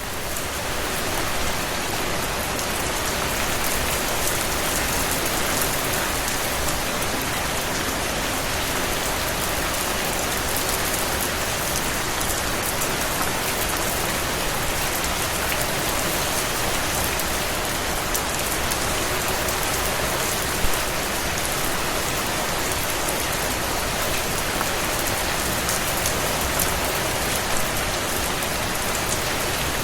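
Steady rain falling on cobblestones, a dense, even patter of drops. One sharper, louder tap about two-thirds of the way through.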